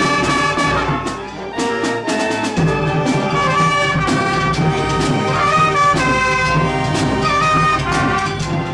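A wind band of brass and woodwinds (trumpets, clarinets, saxophones, low brass) playing a tune together, with regular bass drum and percussion strokes.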